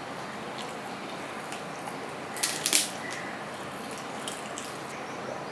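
Close-miked eating sounds: wet mouth clicks and smacks while chewing, with fingers working rice and fried fish on a steel plate. Scattered small clicks and a short cluster of louder, sharp smacks about two and a half seconds in.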